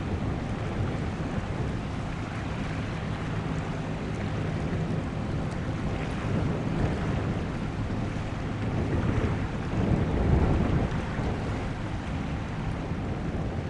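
Faint steady low drone of a passing bulk carrier's engine under the rumble of wind on the microphone and water; the rumble swells briefly about ten seconds in.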